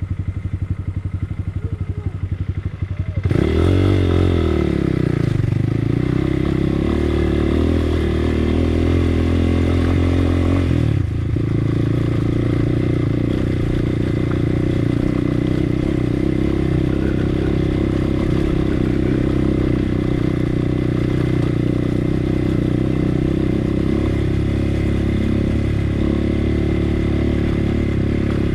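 Motorcycle engine running near idle, then revving up sharply about three seconds in and running steadily at speed for the rest of the time.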